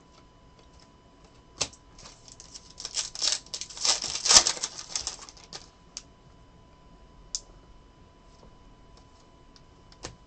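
A stack of chrome Panini Prizm trading cards being flipped and shuffled by hand: a few sharp single clicks, and a dense run of card-on-card clicking and rustling in the middle, loudest about four seconds in.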